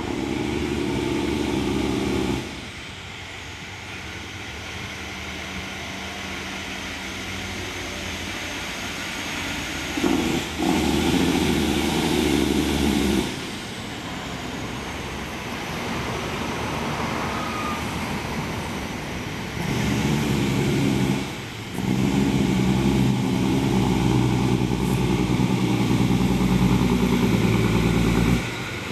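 Heavy diesel truck engines in several clips cut together. The engines are loud and rumbling near the start, again about ten seconds in, and from about twenty seconds on, with quieter running between.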